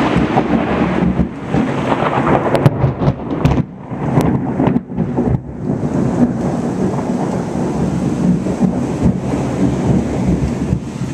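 Thunder rolling and rumbling over heavy rain, with a few sharp cracks about a third of the way in.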